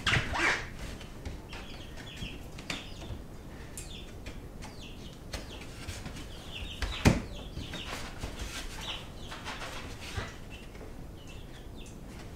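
Knocks and taps of a wooden trim board being handled and pressed into place for a test fit, with a sharp loud knock about seven seconds in and scattered short high squeaks.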